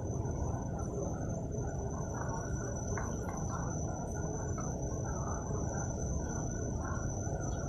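Steady high-pitched insect trill over a constant low rumbling noise.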